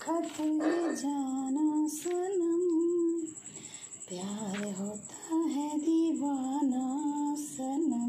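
A woman humming a song melody without accompaniment, in long wavering notes with a short dip about halfway through.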